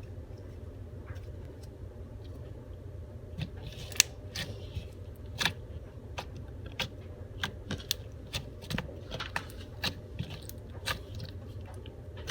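Slime being squished and pressed by hand, making irregular sharp clicks and pops, the loudest about four seconds in. A steady low hum runs underneath.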